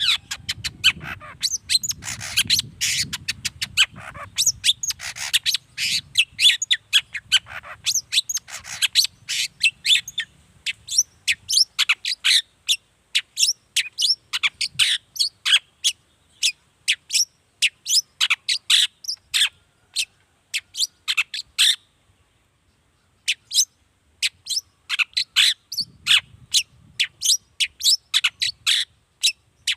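Long-tailed shrike singing a fast, continuous run of sharp chattering notes, with a brief pause about three-quarters of the way through before it resumes. A low rumble sits under the first third.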